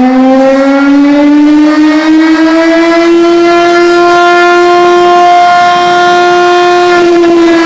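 Ercole Marelli electromechanical air-raid siren sounding loudly, its tone climbing as the rotor winds up over the first few seconds, then holding steady before starting to sag slightly near the end.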